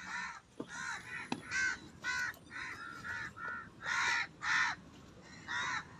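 Crows cawing over and over, about ten short calls in a row.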